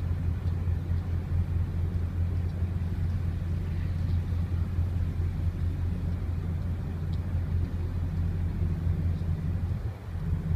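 Engines of the Kobe Concerto cruise ship giving a steady, deep hum as it moves slowly through the water.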